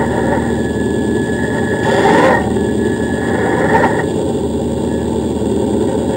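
Radio-controlled off-road model's electric drivetrain running, a thin steady whine over a dense rumble, with louder bumps about two seconds in and again near four seconds.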